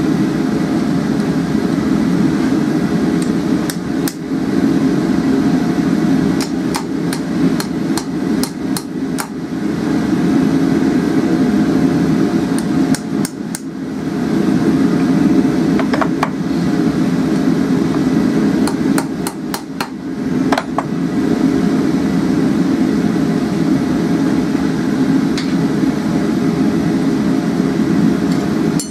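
Hand hammer striking a forged steel hook on an anvil in several short runs of blows, some strikes ringing briefly, over a steady roar that fits a gas forge burner.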